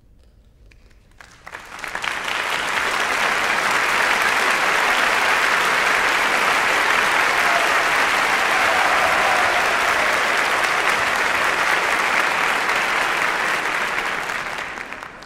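Concert audience applauding. The clapping breaks out about a second in, swells within a second to full, steady applause, and begins to die down near the end.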